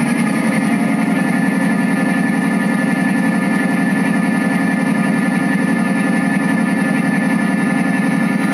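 Model freight train running past on the layout: a steady, loud low rumble like an engine, with a fine rapid pulse and a thin high whine over it.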